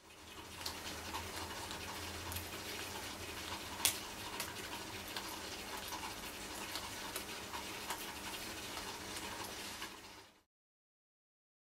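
Steady background hiss with a faint low hum and scattered small clicks and ticks, one sharper click about four seconds in; it cuts off suddenly about ten seconds in.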